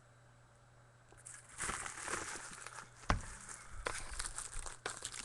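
Plastic wrapping crinkling and being torn off a sealed trading-card box, starting about a second in, with several sharp clicks among the rustling.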